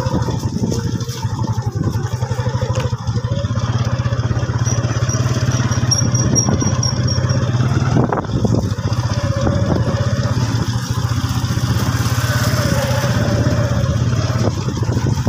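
Motorcycle engine running steadily as the bike is ridden, a constant low drone with a fast, even exhaust pulse.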